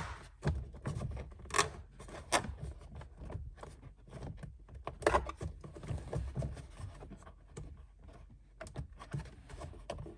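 Plastic dashboard trim panel of a Ford F-150 being pulled and pried at to pop it loose: irregular clicks, knocks, scrapes and rubbing of plastic.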